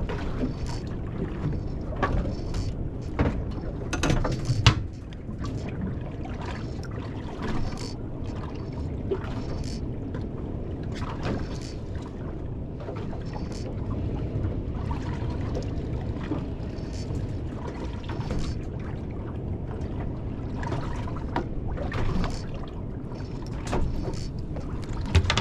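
Steady wind and water noise around a small boat at sea, with scattered sharp knocks and clicks from handling a spinning rod and reel, a couple of the knocks loudest about four to five seconds in.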